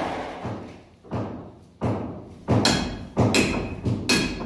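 A metal hand tool striking hard material: a series of about five sharp knocks a little over half a second apart, the later ones ringing like metal on metal.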